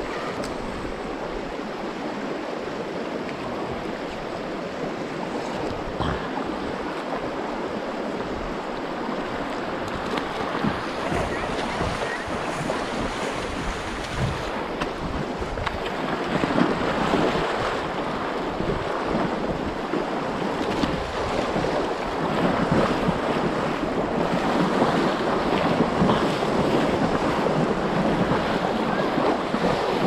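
Shallow, fast river water rushing over a rocky bed close to the microphone: a steady rushing noise that grows louder about halfway through.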